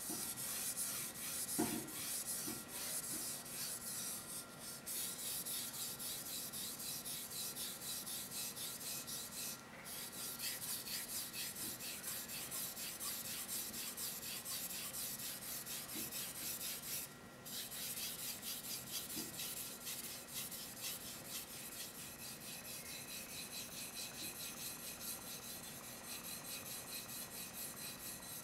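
Steel gyuto blade stroked back and forth over a wet Okudo suita natural whetstone, a steady run of rasping sharpening strokes with a brief knock near the start. The strokes pause briefly twice, about 10 and 17 seconds in.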